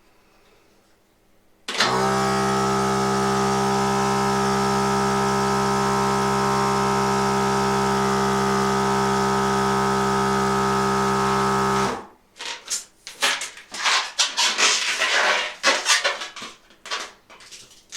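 Timed electric balloon inflator running steadily for about ten seconds as it blows up a latex balloon, then cutting off. Irregular rustling and rubbing of the balloon's rubber follows as it is handled.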